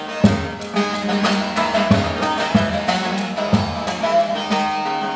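Bağlama (long-necked Turkish saz) played solo, a folk melody picked and strummed with a steady run of sharp string strokes.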